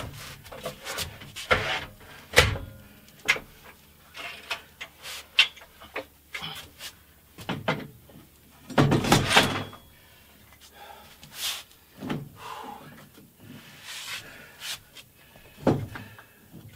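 Irregular metal clanks, knocks and rattles of a Harbor Freight drywall lift's steel frame, mast and winch parts being handled and fitted together, with a longer, louder clatter about halfway through.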